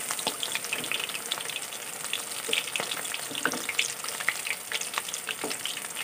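Batter-coated chicken kabab pieces deep-frying in hot oil in a karahi: a dense, steady sizzle full of small crackles, with a metal spatula stirring through the oil.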